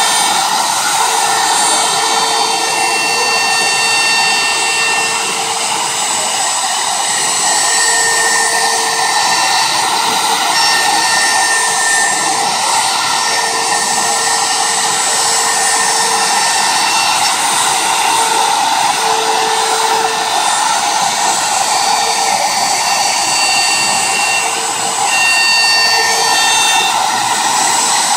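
Handheld electric wood router running at full speed while routing a wooden board: a steady high motor whine over a rushing noise from the spinning bit cutting the wood.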